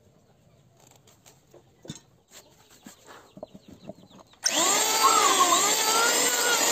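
A few faint knocks, then about four and a half seconds in a homemade wood lathe driven by an old water pump motor starts sounding abruptly and runs loudly, with a tool cutting into the spinning wood.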